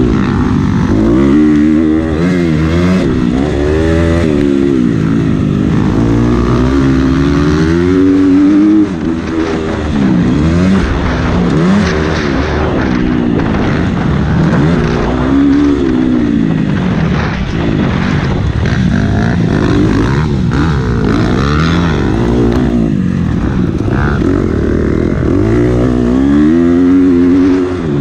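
Motocross bike engine revving hard and easing off again and again as the rider accelerates, shifts and backs off around a dirt track, the pitch climbing and dropping every second or two. It is heard close up from the bike itself, with a brief dip in level about nine seconds in.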